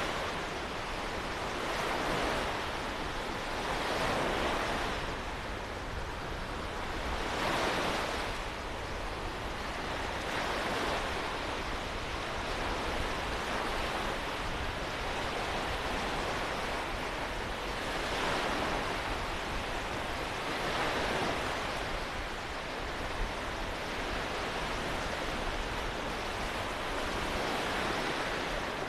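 Waves breaking and washing onto the beach, swelling every few seconds, with wind rumbling on the microphone.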